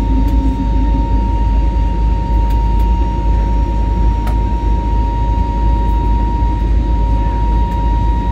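Airbus A320neo cabin in flight while climbing after takeoff: a steady, loud rush of airflow and engine noise, with a steady high whine running through it.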